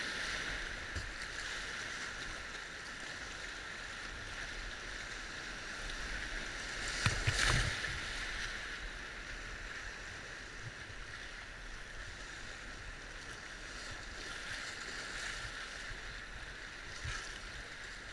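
Rushing whitewater of a river rapid heard from a kayak riding through a wave train, a steady wash of water with splashes from waves and paddle strokes. A louder burst of splashing comes about seven seconds in.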